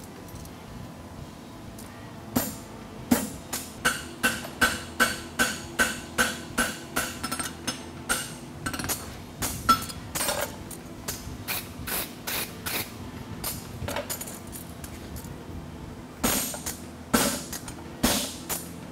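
Hand hammer striking a steel nail-hole stamp that is punching nail holes into a horseshoe on an anvil. The blows come in an even run of about two a second, each with a short metallic ring, then pause and resume with a few more blows near the end.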